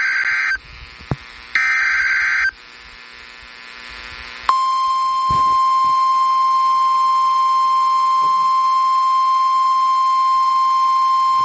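Two buzzy bursts of EAS (SAME) digital header data, each about a second long, with radio hiss between them. About four and a half seconds in, the steady single-pitched 1050 Hz NOAA Weather Radio warning alarm tone begins and holds, announcing a flash flood warning.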